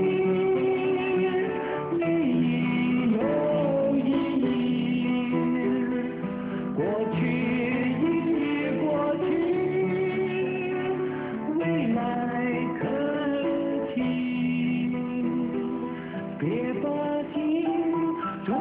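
A song played on acoustic guitar, with a sung melody of long held notes that slide between pitches.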